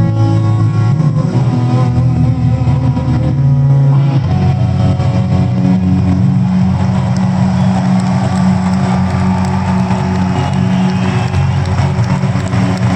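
Live rock band with electric guitars playing the closing bars of a song. About four seconds in the picked notes stop and a low chord is left ringing, under a steady wash of crowd cheering in an arena.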